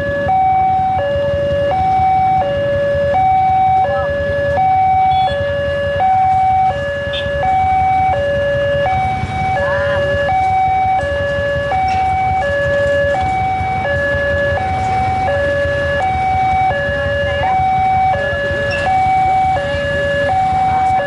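Railway level-crossing warning alarm sounding a steady two-tone signal, a higher and a lower note alternating evenly about every 0.7 s, the warning that a train is approaching with the barrier down. A low traffic rumble runs underneath.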